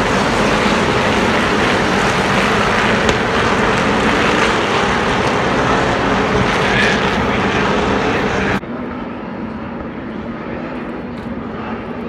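NASCAR Cup stock cars' V8 engines running in a long line at low speed close by, a loud dense drone. About two-thirds of the way through it cuts off suddenly to a quieter, more distant drone of the pack.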